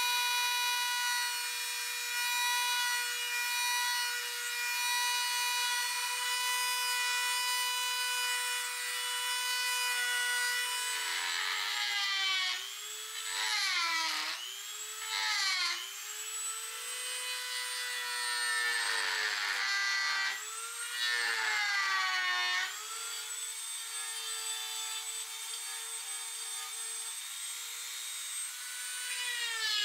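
Dremel MultiPro rotary tool running with a steady high whine while a small bit carves pine. Through the middle stretch its pitch drops and recovers several times as the bit bites into the wood and the motor slows under load.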